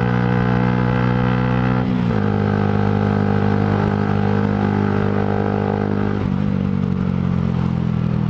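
Yamaha sportbike engine and exhaust heard on board, running at steady revs. The pitch dips slightly about two seconds in and again about six seconds in.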